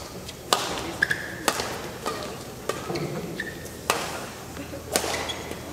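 Badminton rally: rackets strike the shuttlecock with sharp clicks about once a second, four times, with short squeaks of players' shoes on the court mat between the hits.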